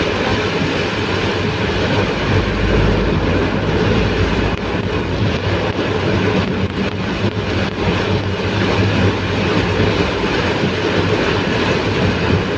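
Heavy rain pouring down in strong, gusty wind, a loud steady rushing roar.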